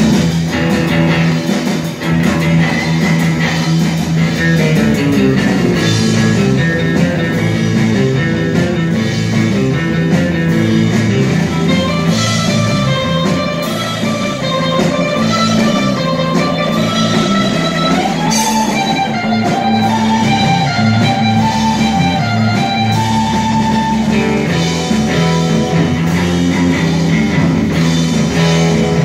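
Live rock band playing loudly: electric guitar over a drum kit, with a melody line that climbs higher in the middle.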